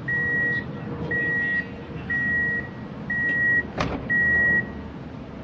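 Stationary CAF light-rail tram sounding a warning beeper: five even, high beeps about half a second long, one a second, over the low hum of the tram. A sharp click comes about four seconds in, just before the last beep.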